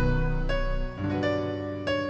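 Slow new-age instrumental music: single piano notes struck one after another, each ringing away, over a low held tone that fades out about a second in.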